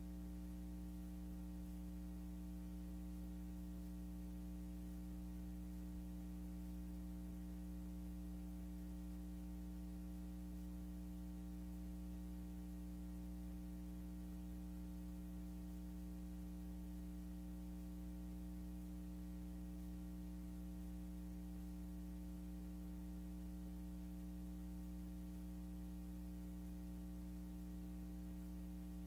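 A steady electrical hum, a low buzzing tone with its overtones, over faint hiss. It is the empty soundtrack of a silent film transfer, with no sound from the scene.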